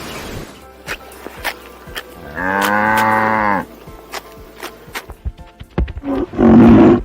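A cow mooing: one drawn-out call of about a second, steady in pitch. Near the end comes a second, louder and lower animal call, with scattered clicks in between.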